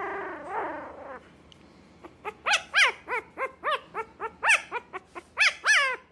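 A very young puppy gives one drawn-out cry that falls in pitch, then a rapid run of short, high-pitched yelps, about three a second.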